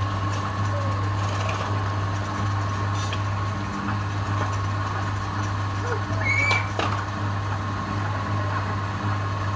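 Wood lathe running steadily with a low hum while the spinning turned spindle is rubbed and polished by hand. A brief high chirp and a few sharp ticks come about six seconds in.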